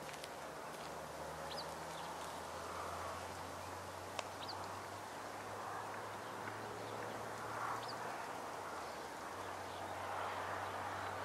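Distant low diesel engine hum of a slowly approaching rail track maintenance machine, with a few short bird chirps.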